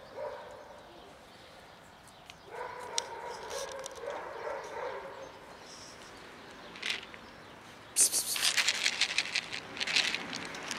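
A dog calling: a drawn-out pitched call about two and a half seconds in, then loud, rapid barking over the last few seconds.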